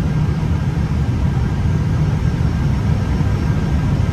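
Airbus A320 flight deck on final approach: a steady low rumble of airflow and engines, with a few faint steady high tones above it.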